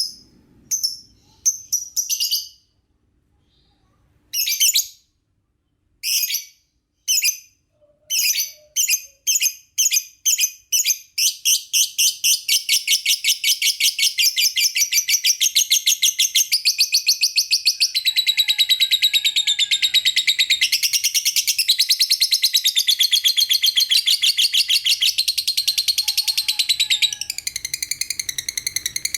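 Lovebird chirping: separate high, sharp chirps at first with a brief pause about three seconds in, then coming faster from about eight seconds in until they run together into a rapid, unbroken stream of chirps.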